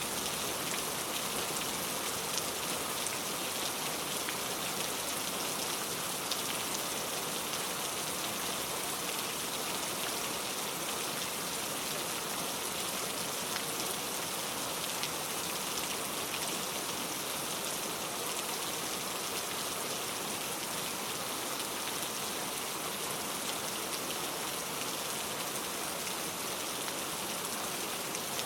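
Steady rain falling with a constant, even hiss and scattered individual drop ticks, with no thunder.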